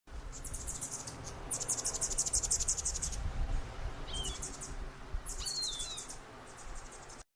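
Hummingbird twittering: rapid trains of very high, fast chips in several bursts, with a couple of short downward squeaks, over a low rumble.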